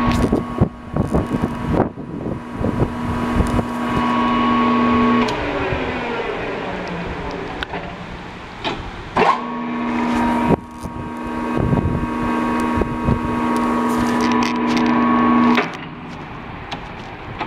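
Enco 14" x 40" geared-head engine lathe running with a steady gear whine and scattered clunks from its controls. About five seconds in it is switched off, and the whine slides down in pitch as the spindle coasts to a stop. It starts up again about nine seconds in and runs until it stops near the end.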